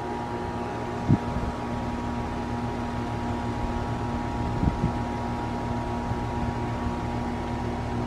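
Goodman GSZ14 heat pump outdoor unit running in defrost mode: a steady compressor hum with a constant low tone. Two brief low thumps, about a second in and near the middle.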